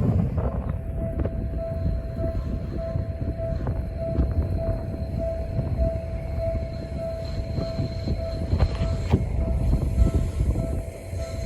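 Japanese railway level-crossing alarm ringing in a steady repeating ding, a little over two strikes a second, over the heavy rumble of a Seibu Shinjuku Line train running through the crossing.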